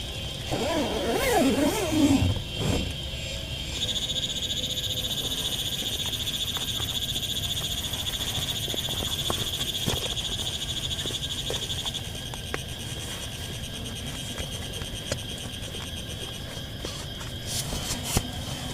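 Frogs croaking in warbling calls for the first few seconds, over a steady high-pitched trill that grows louder from about four seconds in and eases back down about twelve seconds in.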